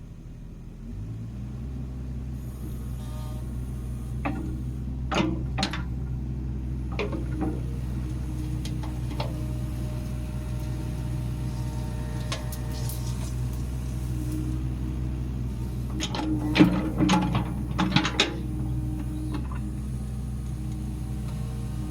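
Kubota KX61-3 mini excavator's diesel engine running steadily, its note rising about a second in. Sharp metallic clanks and knocks from the working machine come twice in clusters, the loudest near two-thirds of the way through.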